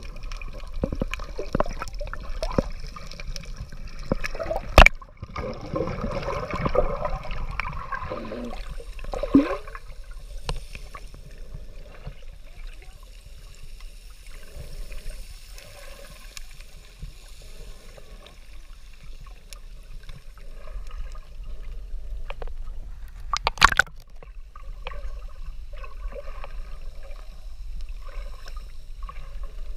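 Water heard through an underwater camera while snorkeling: muffled bubbling and gurgling, busiest for the first ten seconds and then calmer. There is a faint steady hum, and sharp clicks or knocks about five seconds in and again near the end.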